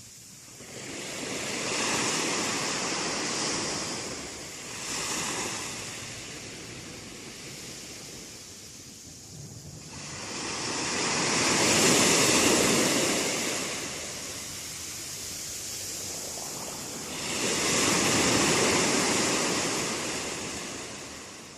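Sea waves washing in, swelling and fading in four surges, the loudest about halfway through.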